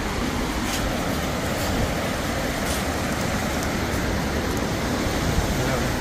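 Steady rushing noise of wind on the microphone and surf, with a few faint ticks about once a second.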